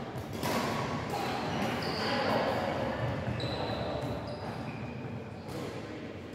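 Badminton rally: several sharp racket hits on the shuttlecock, with short squeaks of shoes on the wooden court and voices chattering in the echoing sports hall.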